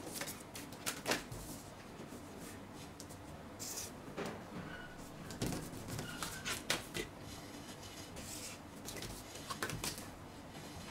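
Scattered light knocks and rustles of clear plastic pattern rulers, a straight ruler and a curve ruler, being shifted and set down on paper, with a marker drawing along them.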